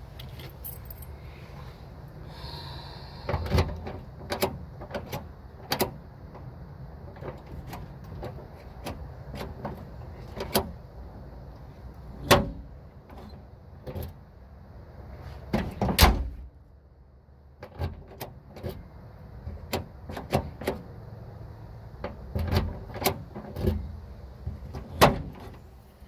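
Irregular sharp metallic clicks and clacks from a Toyota Tacoma tailgate latch mechanism and its linkage rods being worked by hand, with a dull hum beneath.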